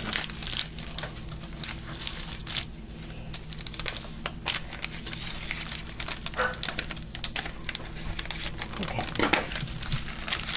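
Plastic package of wonton wrappers crinkling and rustling with many irregular small crackles as it is handled and opened.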